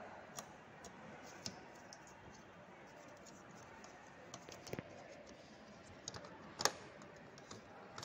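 Scattered clicks and light knocks of hard plastic and metal as the plastic CPU fan shroud of a Dell Vostro desktop is handled and fitted inside the case. There is a small cluster of clicks about halfway, and the loudest knock comes about two-thirds of the way in.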